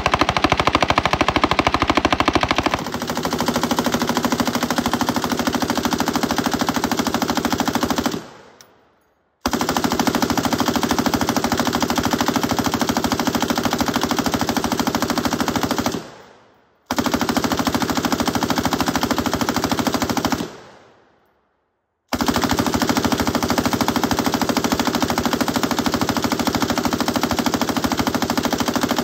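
M249 SAW, a belt-fed 5.56 mm light machine gun, firing long bursts of rapid automatic fire, broken by three brief silences, about 8, 16 and 21 seconds in.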